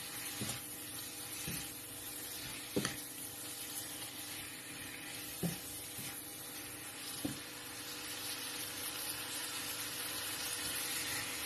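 Beef pieces frying with spices in a nonstick pan: a steady sizzle while a silicone spatula stirs, with several short knocks of the spatula against the pan.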